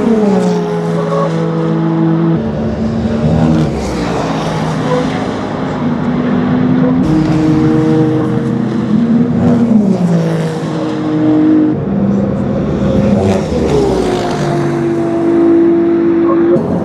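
Racing car engines at speed, heard in several short passes that change abruptly. The engine notes fall in pitch as the cars brake and shift down, then hold steady.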